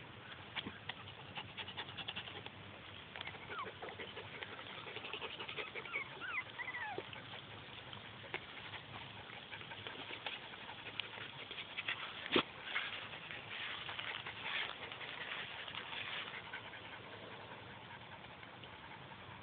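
Young puppies whimpering and squeaking a few times in short high glides, over soft rustling and small clicks from the dogs moving through the grass. One sharp knock about twelve seconds in.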